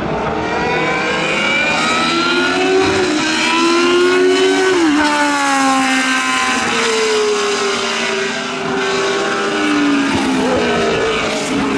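Historic Formula 1 car's engine at high revs passing at speed. Its pitch climbs, drops sharply as it goes by about five seconds in, then falls away slowly as it pulls away, with a fresh rise in revs near the end.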